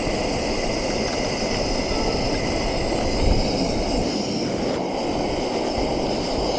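Gas camp stove burner running at a steady roar under a kettle heating water.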